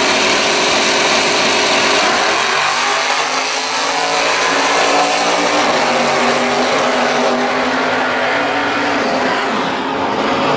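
Two drag-racing cars launching side by side and running down the strip at full throttle, their engine pitch rising in steps through the gears as they pull away.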